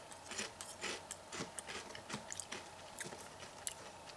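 Crunchy Lay's potato chips being chewed: a run of small, irregular crunches, several a second.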